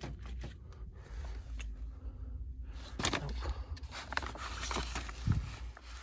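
Scrapes, light knocks and rustling as someone moves about on a plastic vapor barrier and handles pleated air filters in a crawl space, over a low steady hum.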